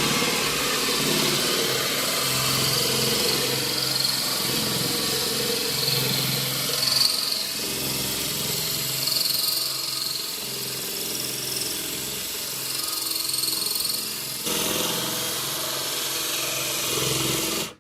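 Electric drill running a diamond hole saw as it grinds into porcelain tile, a steady motor hum with a gritty hiss. The sound changes suddenly about 14 seconds in and cuts off abruptly at the end.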